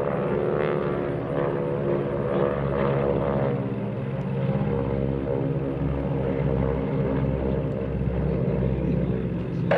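A formation of North American T-6/SNJ Texans flying past, their Pratt & Whitney R-1340 Wasp radial engines and propellers making a steady drone.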